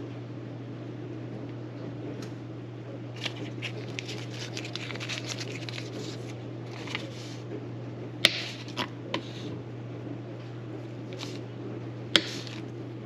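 A flounder being filleted with a knife on a cutting board: a few seconds of scraping, slicing strokes, then several sharp knocks. A steady low hum runs underneath.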